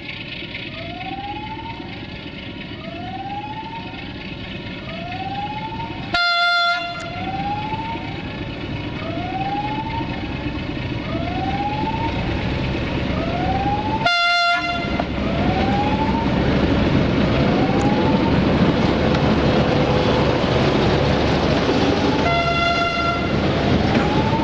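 060-DA (LDE2100) Sulzer diesel-electric locomotive passing with a freight train, sounding its horn in three short blasts about 6, 14 and 22 seconds in, while its engine and wheel noise grows louder as it comes close. Throughout, an electronic warning tone sweeps upward about once a second.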